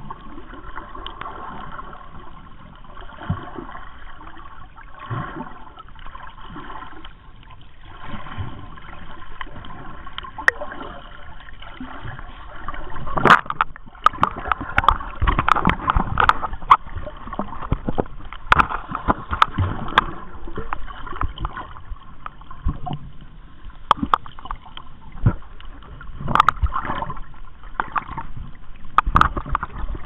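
Sea water sloshing and gurgling around the camera, with irregular knocks and splashes, getting louder and busier about halfway through.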